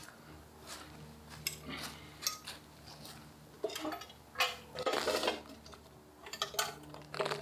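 Hand-turned metal bucket auger scraping and clinking against stone in the hole, where it has struck a large rock. There is a longer stretch of scraping about four seconds in as it comes out of the ground, and a few light metallic clinks near the end as the filled bucket is handled.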